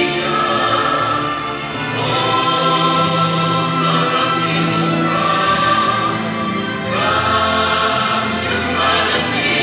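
Choir singing long held chords over backing music; the chord changes about two seconds in and again about seven seconds in.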